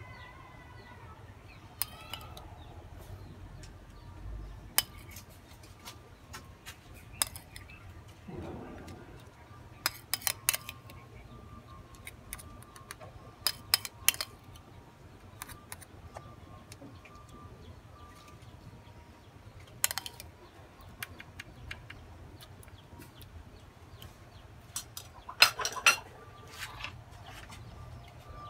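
A metal spoon clinking and scraping against a ceramic plate and a metal baking tray while mustard is scooped and spread, in scattered sharp clicks with gaps of a few seconds between them. The loudest run of clinks comes near the end.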